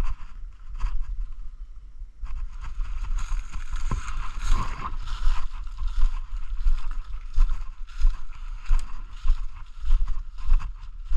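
Footsteps crunching through dry leaf litter and brushing past undergrowth, about a step every half second, over a low rumble on the microphone.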